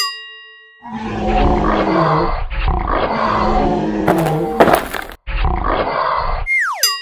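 Tiger roar sound effect: a long, rough roar with a brief break about five seconds in and a sharp loud peak a little before that. A short falling swoop tone rings out at the very start and again near the end.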